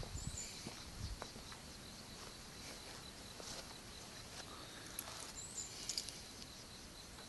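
Quiet outdoor ambience: insects chirping in a steady, rapid high pulse, with a short high bird call near the start and again about five seconds later, and a few footsteps in the first second.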